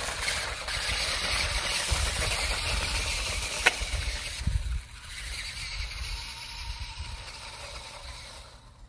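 Battery-powered toy RC truck (New Bright Ford Bronco) driving over loose gravel, its small electric motor and gears running and its tyres crunching on the stones, with a sharp click about three and a half seconds in. The sound drops off after about four and a half seconds and fades as the truck drives away.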